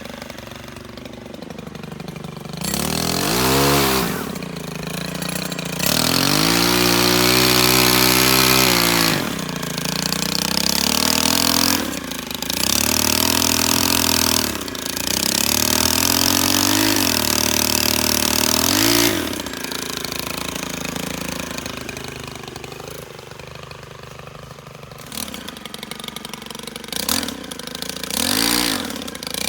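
STIHL KM 131R Kombi power head's small four-stroke 4-MIX engine driving a pole saw, its throttle opened and released again and again: the revs climb and are held high several times, then drop back to a steady idle for several seconds near the end.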